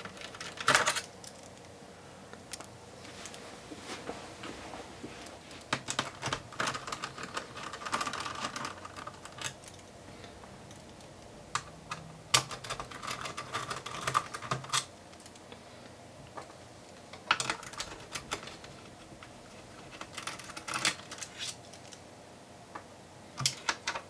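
Small Phillips screwdriver backing screws out of a computer's metal mainboard shield: light metallic clicks and ticks that come in short clusters, with pauses between them.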